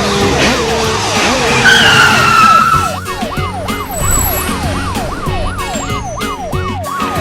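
Cartoon siren sound effect, a tone swooping up and down about twice a second, over background music; about two seconds in, a short squeal slides down in pitch.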